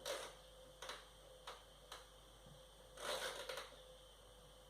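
A few light clicks about a second apart, then a brief clattering rustle about three seconds in, as a Thermomix is handled and its controls are set to start cooking.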